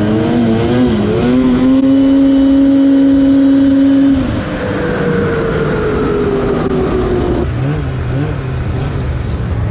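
Snowmobile engine at speed. The pitch wavers, then holds high and steady for a couple of seconds. About four seconds in it drops back and sinks slowly as the throttle comes off, and near the end it changes abruptly to a lower, wavering engine note.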